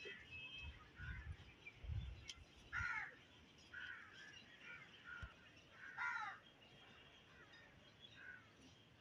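Birds calling: two loud, harsh falling calls about three seconds apart among shorter chirps, with low rumbles in the first two seconds.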